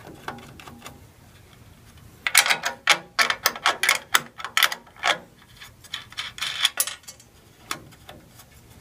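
Irregular metallic clicking and clinking, starting about two seconds in and thinning out after about seven seconds: nuts and washers being turned off bolts by hand and handled.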